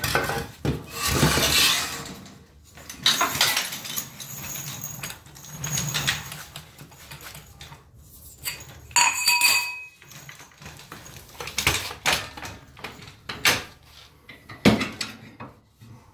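Metal tools and car suspension parts clanking and scraping in irregular bursts, with a ringing metallic clang about nine seconds in.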